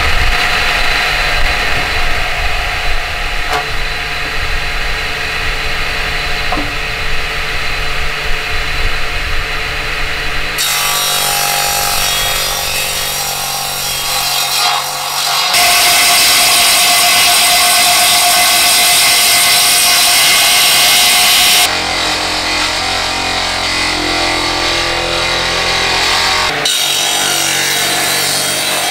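Belt-driven electric wood planer (jointer) running and shaving a heavy timber beam fed across its cutter head. The cutting noise is loud and steady, changing abruptly several times.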